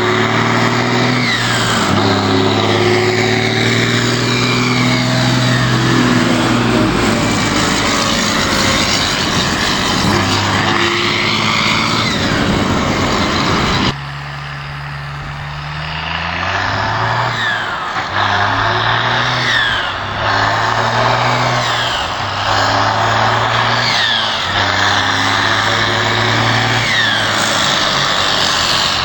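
New Holland TM150 tractor's turbo diesel engine running loud through a straight-pipe exhaust, its speed repeatedly rising and falling, with a high turbo whistle that glides up and down with each change. The level drops suddenly about halfway through, then comes a run of short rises in engine speed about every two seconds, each followed by a falling whistle.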